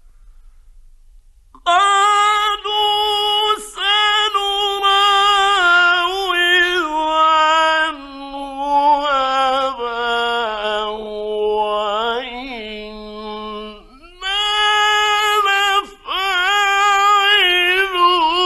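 A male Quran reciter chanting in the melodic mujawwad style, with long held, ornamented notes in a high register. The voice comes in about two seconds in and steps down to a lower pitch through the middle. After a brief pause it climbs back to the high register. A faint low hum from the old radio recording runs underneath.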